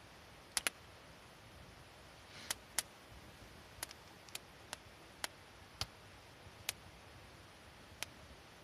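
A series of sharp, irregular clicks or pops, about a dozen, over a faint steady hiss.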